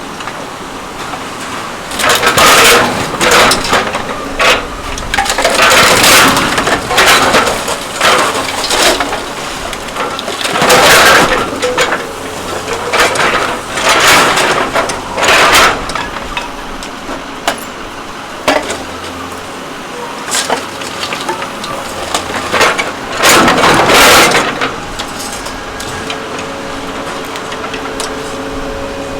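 Scrap metal being crushed: a series of loud, irregular crunching and cracking bursts over a steady low machine hum.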